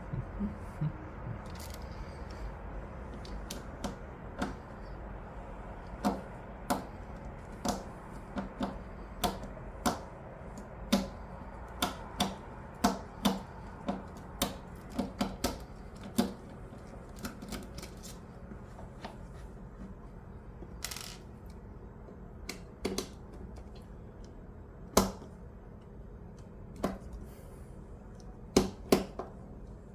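Irregular sharp clicks and taps of a screwdriver and small plastic parts being handled while a watch winder is taken apart, with a short scrape about two-thirds of the way through.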